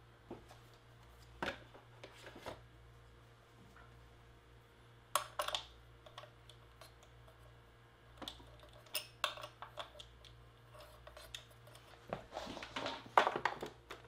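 Scattered plastic clicks, knocks and clatters from handling a small LCD TV's casing and stand as it is put back together, getting busier near the end as cables are plugged into the back of the set.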